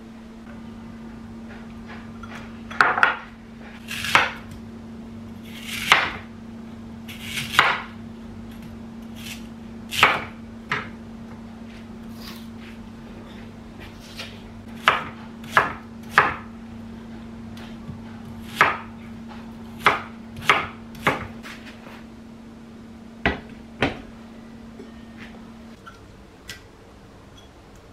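Kitchen knife chopping a pear on a wooden cutting board: about twenty separate chops at an uneven pace, some with a short crunch as the blade goes through the firm flesh.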